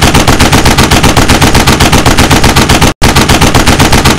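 Machine-gun fire sound effect for a logo animation: a long, very loud, rapid burst of shots at about eight a second, with one short break about three seconds in.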